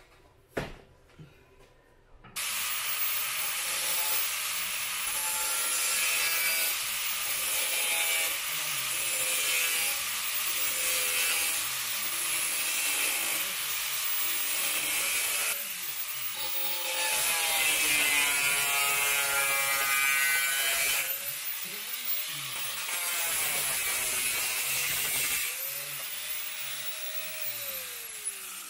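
After a single knock, an angle grinder with a cut-off wheel starts about two seconds in and cuts through a sheet-metal panel. The motor's pitch sags and recovers as the disc bites, with short breaks in the cut. Near the end it is released and spins down with a falling whine.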